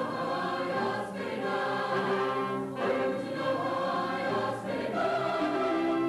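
Mixed choir singing sustained chords with brass accompaniment, the harmony shifting every second or two.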